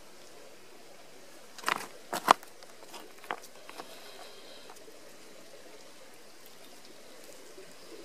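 Steady rush of a creek, with a quick cluster of sharp clicks and knocks about two seconds in, the loudest a single crack, and a few fainter ticks just after.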